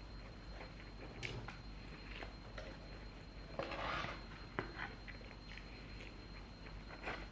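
Faint, close-up chewing and mouth sounds of a person eating cooked mushrooms, with scattered small clicks and a louder, longer wet sound about four seconds in. A thin, steady high-pitched whine sits underneath.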